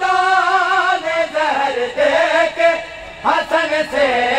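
Men's voices chanting an Urdu noha, a Shia lament, together. A long held note with a wavering pitch opens the line, followed by shorter sung phrases.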